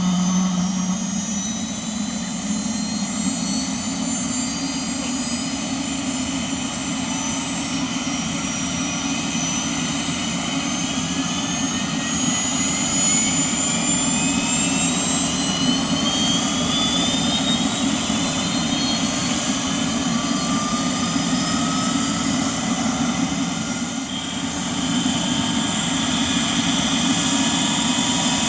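Bell 206B-3 JetRanger III's Allison 250 turboshaft engine spooling up: a high turbine whine climbing steadily in pitch for about seventeen seconds, then holding at one steady high tone over the low running noise, a little louder near the end.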